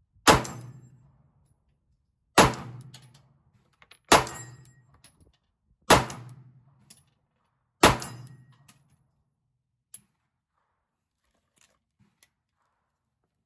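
Five shots from a Glock 43X 9mm pistol, about two seconds apart, each with a short echo that dies away within a second. A few faint clicks follow once the slide has locked back on the empty magazine.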